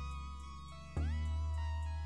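Background music played on guitar: ringing notes, with a new chord struck about a second in and some notes sliding in pitch.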